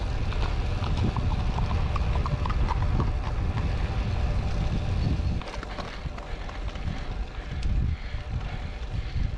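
Wind buffeting the microphone of a moving road bike, a heavy low rumble that eases a little after the halfway mark and turns gustier. Over the first three seconds comes a run of light, evenly spaced ticks, about four a second.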